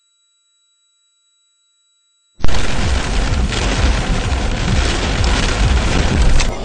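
Faint steady high tones, then about two and a half seconds in a loud, steady rumble with hiss cuts in abruptly. This is dashcam audio of a car driving through heavy rain on a wet road.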